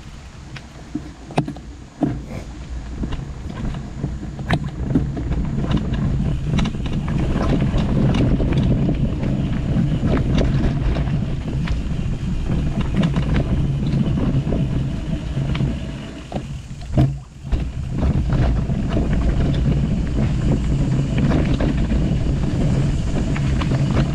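Mountain bike riding along a dirt forest trail: wind buffeting the camera microphone and tyres rumbling over the ground, with scattered clicks and knocks from the bike over bumps. A brief lull comes about seventeen seconds in, followed by a sharp knock.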